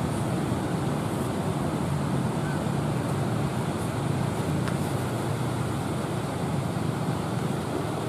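Steady low rumble of rough sea surf and wind, even in level throughout.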